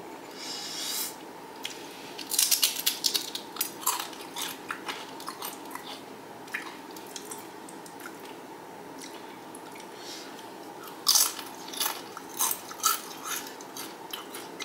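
Crunching and chewing a dipped Doritos tortilla chip: a quick run of crisp crunches a couple of seconds in, scattered softer chewing, then another burst of crunching about eleven seconds in.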